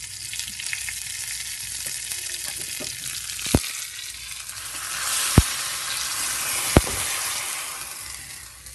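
Tempering of mustard seeds, cumin and curry leaves sizzling in ghee in a small iron tadka ladle. The sizzle swells into a louder hiss about five seconds in as the tempering is poured into the hot rasam, and three sharp clicks are heard along the way.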